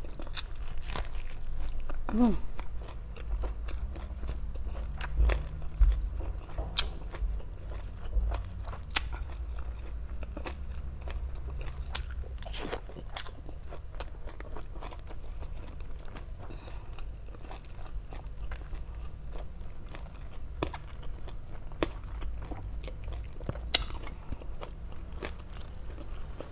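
A person eating close to the microphone: crunchy bites and chewing of crispy lechon kawali (deep-fried pork belly), with sharp crunches scattered irregularly over a low steady rumble.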